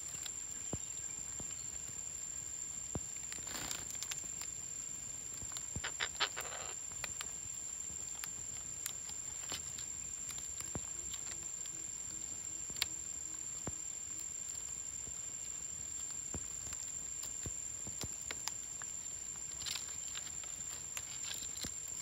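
Parrots moving and pecking among dry branches and leaf litter: scattered light clicks and scratches, with a few brief squawks, the plainest about six seconds in. A steady thin high-pitched whine runs underneath.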